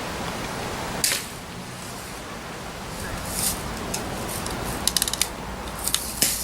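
BB gun shooting and handling: a sharp pop about a second in, short puffs later, and a quick run of mechanical clicks near the end.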